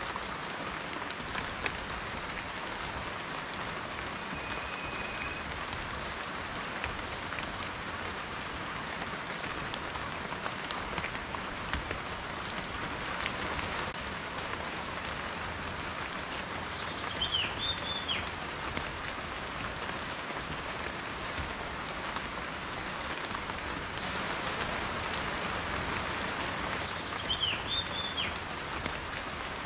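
Steady rain, with individual raindrops ticking on a surface through the even patter. Two brief high chirps come about ten seconds apart, one in the middle and one near the end.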